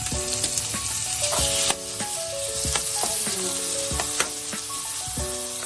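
Raw chicken pieces sizzling in hot oil in a nonstick frying pan, with a metal spoon clicking and scraping against the pan as the pieces are spread out. The sizzle swells louder and then drops back sharply a little under two seconds in.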